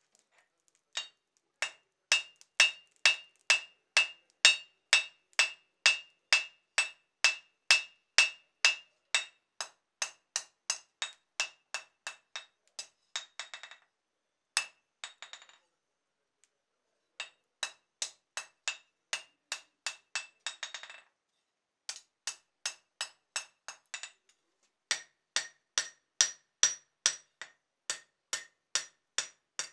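Hand hammer forging a red-hot steel bar on a small anvil: a steady run of sharp blows, about three a second, each with a clear metallic ring. The hammering stops briefly a few times and then starts again.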